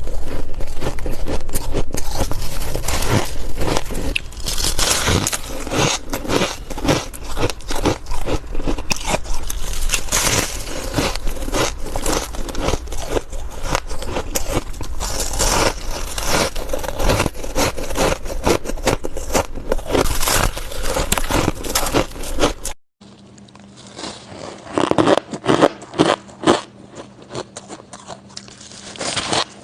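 Close-miked crunching and scraping of ice being bitten and chewed, a dense run of irregular crackles. About 23 seconds in it cuts abruptly to a quieter stretch with a low steady hum and a few louder crunches.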